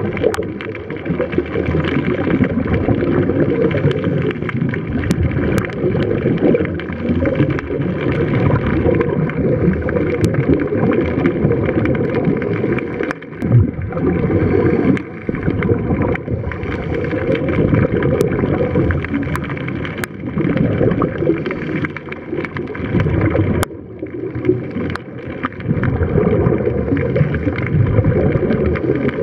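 Underwater sound picked up by a diving camera: a steady, rumbling, gurgling wash of water with the bubbles of scuba divers exhaling through their regulators.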